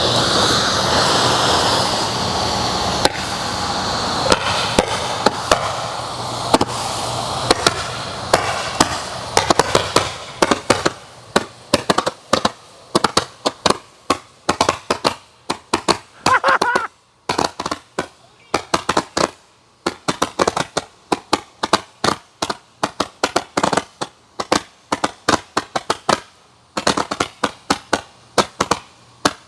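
Handheld firework 'Gatling gun' going off: a loud, continuous hissing spray for about ten seconds, then a rapid, uneven string of sharp pops, several a second, broken by a few short pauses.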